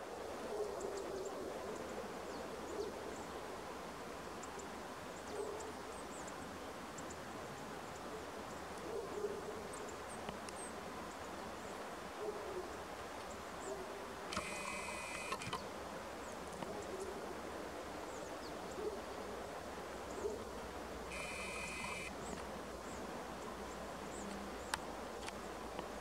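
Steady outdoor background noise with faint, short, low calls or blips every second or two. Two brief whirring sounds come about halfway through and again about three quarters of the way in.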